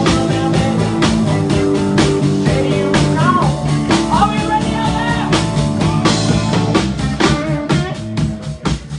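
Live blues-rock trio playing: electric guitar, electric bass and drum kit. Near the end the sound thins out and gets choppier, with separate drum hits standing out.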